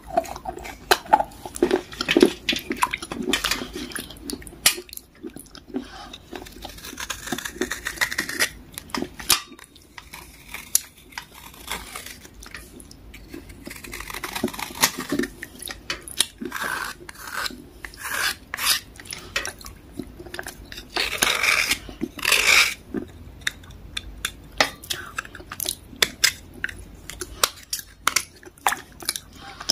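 Knife blade scraping and scratching the soaked, softened surface of a dark grey block, held over a plate of water, in irregular short strokes with small wet clicks. A longer run of scraping comes a little past two-thirds of the way through.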